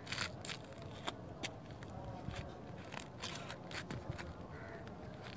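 Spinning rod and reel being handled close to the microphone: a dozen or so irregular sharp clicks and taps over a steady low background noise.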